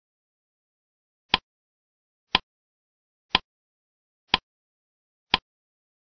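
Quiz countdown timer sound effect: five short, sharp ticks, one every second, with silence between them.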